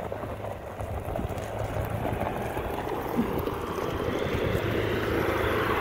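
Side-by-side UTV engine and drivetrain running under way on a dirt trail, growing steadily louder.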